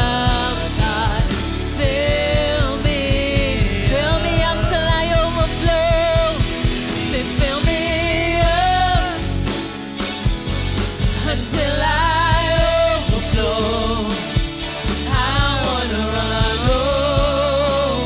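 Live church worship band playing a slow worship song, a singer holding long wavering notes over bass and drums.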